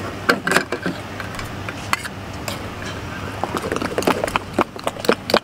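Steel spoon clinking and scraping against a steel pot as food is scooped out, in a series of irregular sharp clicks.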